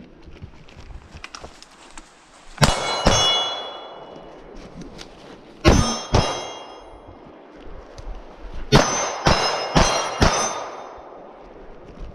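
Gunshots fired in quick pairs, each hit followed by the ringing clang of a steel target: two shots about two and a half seconds in, two more near six seconds, then a fast string of four near the end.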